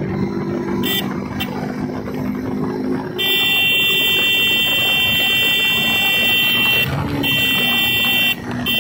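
Motorcycle engine running under way. There are two short horn toots about a second in, then a horn sounds steadily and loudly from about three seconds, cut briefly twice near the end.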